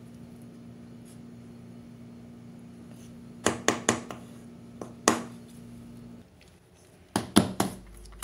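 Wooden spoon knocking against a steel cake ring while a soft cheesecake filling is spread: a few sharp taps about three and a half seconds in and again around five seconds, then another quick run of knocks near the end as the ring is handled. A steady low hum runs underneath and stops about six seconds in.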